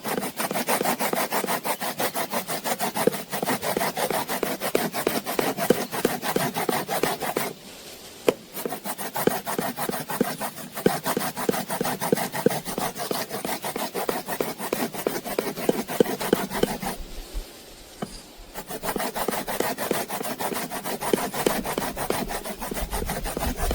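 Lemon rind being zested on a grater: quick, even rasping strokes, stopping briefly twice.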